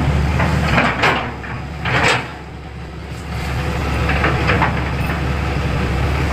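Metal parts of a hydrovac brake booster knocking and clicking as they are handled and fitted, with two sharp knocks in the first couple of seconds, over a steady low engine-like drone.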